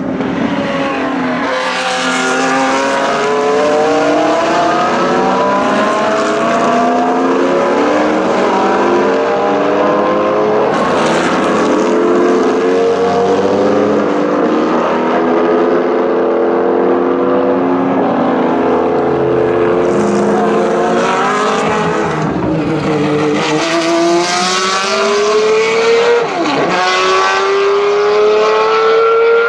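Historic racing cars accelerating hard one after another, their engine notes rising in pitch through repeated upshifts and overlapping as the cars follow closely.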